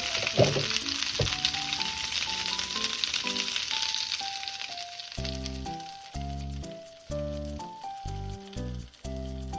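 Leafy greens sizzling as they stir-fry in a hot pan, with a few sharp knocks from a utensil in the first second or so. Background music with a simple melody plays over it, a heavier bass line coming in about halfway through.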